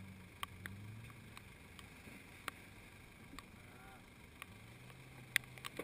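Jeep Grand Cherokee WJ engine running faintly at low revs as the lifted SUV crawls slowly through a ditch. The low hum fades out after the first second and comes back about four and a half seconds in, with a few sharp clicks scattered through it.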